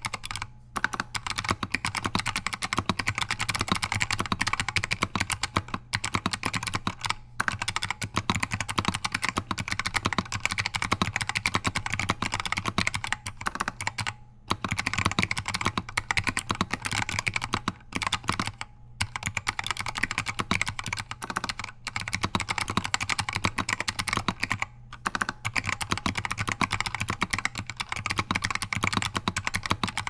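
Typing on an Alps64 custom mechanical keyboard with modded Alps White switches and Apple Extended Keyboard II (AEKII) keycaps: a dense run of key clacks, broken by a few brief pauses.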